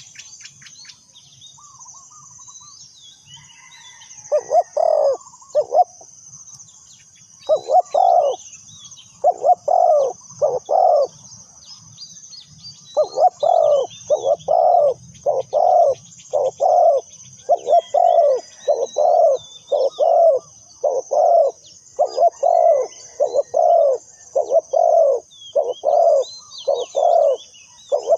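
Spotted dove cooing over and over, its low notes coming in short groups at first and then almost without a break through the second half. A steady high hiss and faint chirps of small birds lie underneath.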